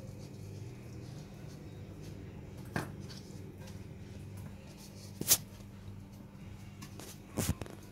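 Fingers pressing and spreading a dry semolina and spice coating in a stainless steel plate, with three sharp clicks against the plate, the middle one loudest, over a steady low hum.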